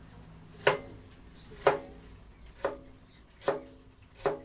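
A cleaver chopping through an apple mango onto a cutting board: five sharp chops about a second apart, each with a brief ring.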